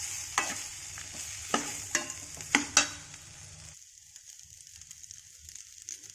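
Slotted steel spatula clinking and scraping against a stainless steel kadai while stirring cooked rice, over a faint steady sizzle. The sharp clinks come several times in the first three seconds, then the stirring goes quieter.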